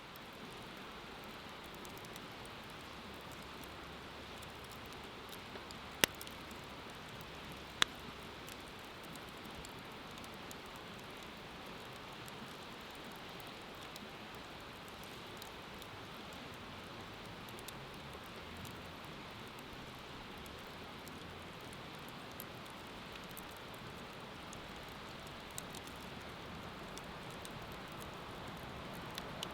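Wood fire burning, with scattered faint crackles and two sharp loud pops about six and eight seconds in, over a steady rushing hiss.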